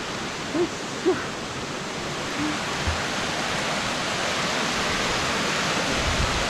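Waterfall: a steady rush of falling water that grows slightly louder. Two short pitched sounds come in the first second or so.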